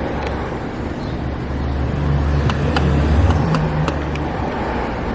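A motor vehicle driving past: a low engine rumble that swells about two seconds in and fades about four seconds in, with a few light clicks on top.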